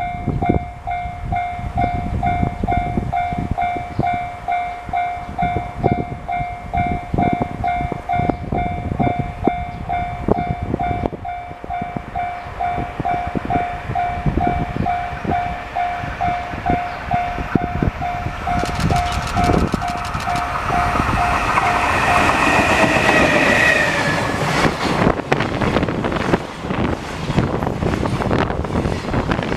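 A Japanese level-crossing alarm dinging steadily about twice a second, then a freight train comes through the crossing about twenty seconds in, its wheels clattering over the rail joints and drowning out the alarm.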